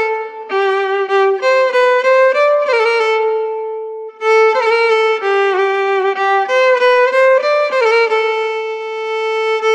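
Background music: a solo melody on a bowed string instrument, slow, with notes sliding into one another. One long note is held and fades about three seconds in, then after a short break the melody picks up again.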